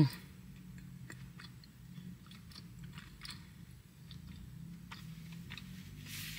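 A person chewing and eating a donut: soft, irregular mouth clicks and smacks over a low steady hum. A short, loud vocal sound falling in pitch comes right at the start.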